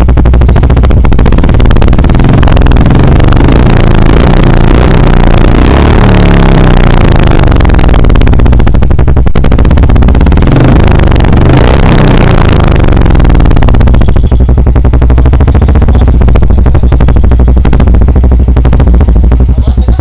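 New Royal Enfield Bullet 350's single-cylinder engine running through a short-bottle aftermarket silencer packed with ceramic wool, with a deep, bassy exhaust note. It is revved up and down repeatedly for the first two thirds, then settles to a steadier idle.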